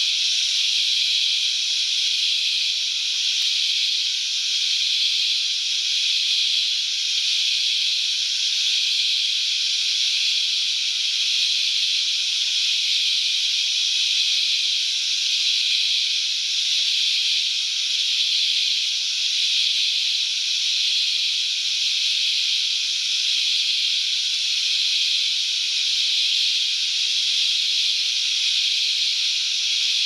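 Dense, unbroken insect chorus: a steady high-pitched hiss that neither starts nor stops.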